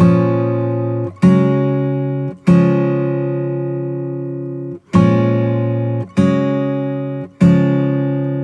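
Background music: acoustic guitar strumming single chords, one strum every one to two seconds, each chord left to ring and fade before the next.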